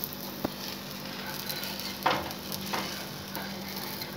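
A wheat-flour batter pancake sizzling in oil on a hot tawa, with a sharp tap about half a second in and two scrapes of a spatula against the pan around two seconds in as the pancake is loosened and turned over.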